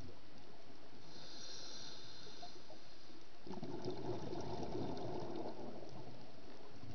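A scuba diver breathing through a regulator underwater. A high hiss of inhaled air comes about a second in, then a louder bubbling rush of exhaled air from about three and a half seconds in, lasting about two seconds.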